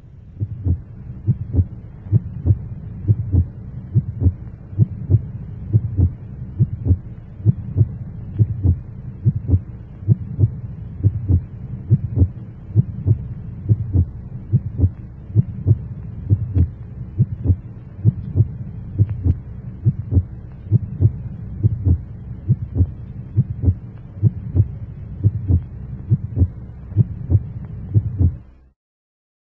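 A steady rhythm of short, low thumps over a constant low hum, repeating evenly throughout and cutting off suddenly near the end.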